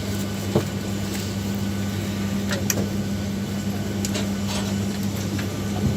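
Steady hum inside a Boeing 737-800 passenger cabin, with a low even tone under it and a few scattered clicks and knocks.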